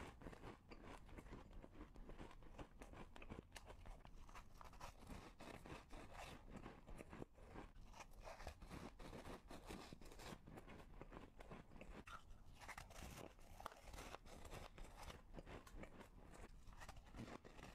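Faint, close-up biting and crunching of frozen flower-shaped ice pieces: a continuous run of irregular crisp cracks and crunches as they are chewed.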